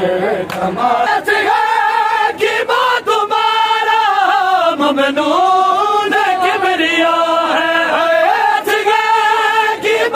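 A group of male noha reciters chanting an Urdu mourning lament together in long, drawn-out held notes. A few sharp slaps sound through it.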